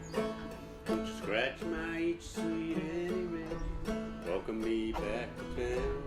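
Background music: a country song with strummed acoustic guitar and a steady beat.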